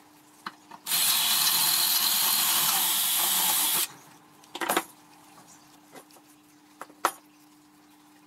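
Cordless drill-driver running steadily for about three seconds, backing the screws out of a steel angle bracket. A few short metallic clicks follow as the parts are handled.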